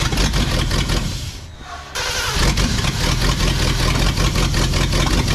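Ford 390 V8 in a 1968 F-250 cranking over on the starter, its coil jumped straight from the battery, turning over without firing on a first try after sitting about ten years. It eases off briefly about a second in, then cranks steadily again.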